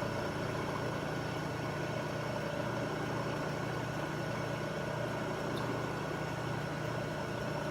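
Milling machine running with a steady, constant hum as it mills a thin aluminum pen clip down to size.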